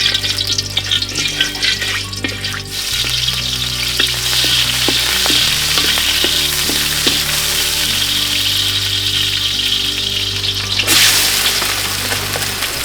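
Food sizzling in a hot pan, a steady frying hiss with occasional light clicks of stirring. The hiss grows louder near the end.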